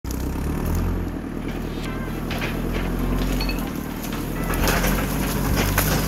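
JCB 3CX backhoe loader's diesel engine running steadily as the machine pushes into brush and small trees, with branches cracking and snapping from about two-thirds of the way in.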